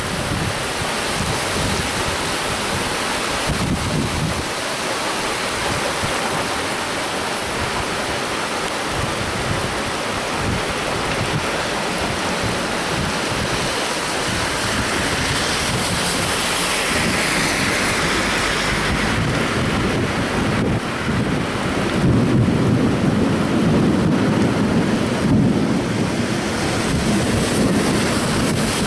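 Heavy rain pouring down onto a flooded street, a steady hiss with wind gusting against the microphone. The low rumble swells over the last several seconds as a pickup truck drives through the standing water, splashing.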